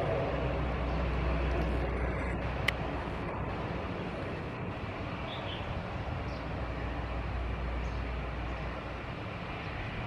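Four-engine turboprop drone of a C-130H Hercules (Allison T56 engines, four-bladed propellers) at takeoff power on its takeoff roll: a steady rumble with a deep hum that slowly fades. A single sharp click about two and a half seconds in.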